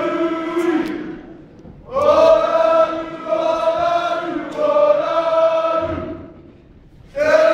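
A large group of boys and men singing in unison, in long held notes. The phrases last a second or two, with short breaks between them.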